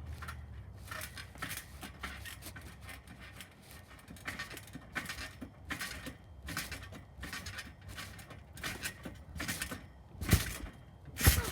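A run of short rustling crunches, about two a second, then two heavy thumps near the end: running footsteps on dry ground and the landing of a jump.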